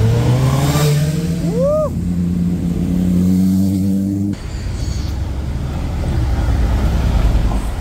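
Mercedes cars' engines running, one engine's pitch rising over the first two seconds. Two short rising-and-falling tones sound about two seconds in. About four seconds in the sound changes abruptly to a noisier, steady engine rumble.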